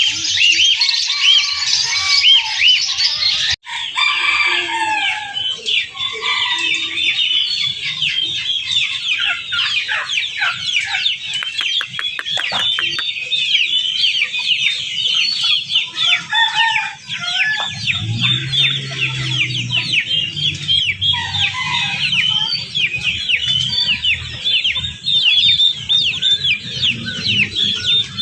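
Many caged birds chirping at once, a dense continuous din of short high chirps with louder, lower calls now and then. A low steady hum joins about two-thirds of the way through.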